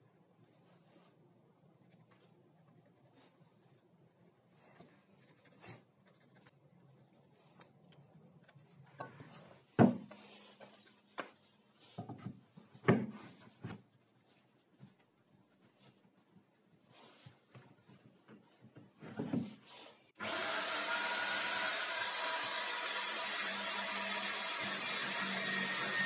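Faint pencil scratching along a ruler on plywood, then several knocks of wooden blocks being set down. About twenty seconds in, a corded electric drill mounted in a homemade wooden drill-press stand switches on and runs steadily.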